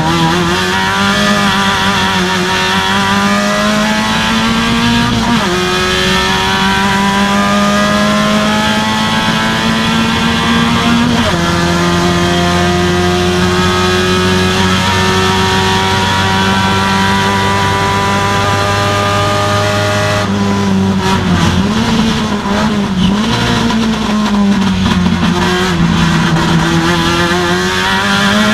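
Procar 2000 race car's engine heard from inside the cockpit, pulling hard through the gears with two sharp upshifts in the first eleven seconds, then holding steady high revs down the straight. About twenty seconds in, the revs drop and waver as the car brakes and downshifts for a corner, then climb again near the end.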